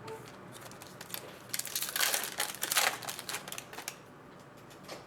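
Trading cards and their pack wrapper being handled: rustling and crinkling that swells for about two seconds in the middle, with a few small clicks around it.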